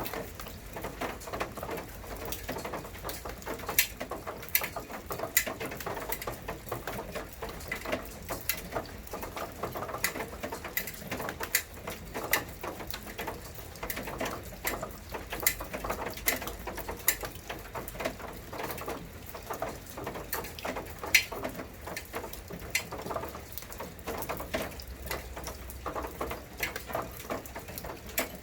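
Rain falling steadily, with many irregular drops ticking and pattering on nearby surfaces, a few louder single drips among them.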